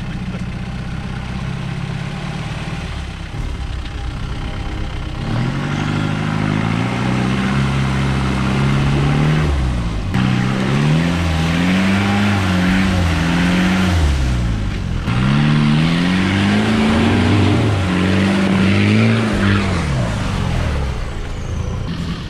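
Land Rover Defender's engine running low, then revving hard from about five seconds in as it drives through a muddy, water-filled rut, the revs climbing and falling again and again with sharp drops about ten and fifteen seconds in. Tyres churn through mud and water under the engine.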